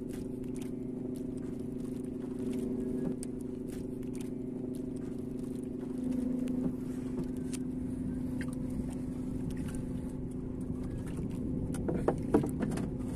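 Boat engine running steadily with an even, pitched hum, with faint clicks from the handline being pulled in by hand and a few sharper knocks near the end.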